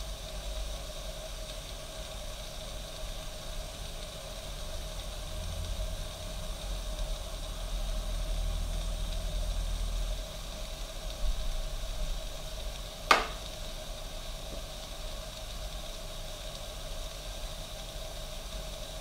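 East German Kaffee Boy K500 coffee machine hissing and sizzling steadily with steam over a low hum. A single sharp click comes about thirteen seconds in.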